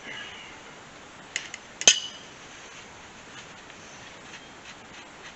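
Metal parts clanking: a couple of light clinks, then one sharp clank with a short metallic ring about two seconds in, as metal is set down.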